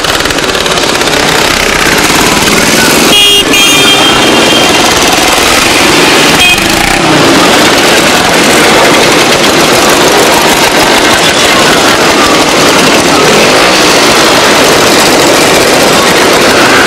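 Many motorcycles ride past together at parade pace, their engines running in one dense, loud noise with no single machine standing out. A horn sounds briefly about three seconds in.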